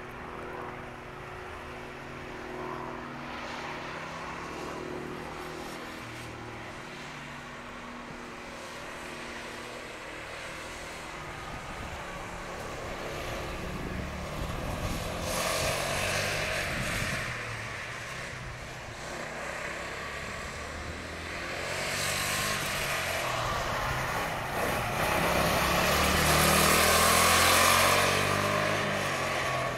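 Sodi RX250 rental go-kart engines running on a wet track, their pitch rising and falling as the karts lap and pass. The sound swells twice, the louder pass coming near the end as a kart closes in.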